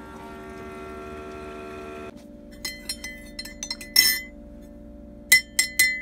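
A Keurig coffee maker's steady hum cuts off about two seconds in. Then a spoon clinks against a ceramic mug about seven times, stirring the coffee, each clink ringing briefly.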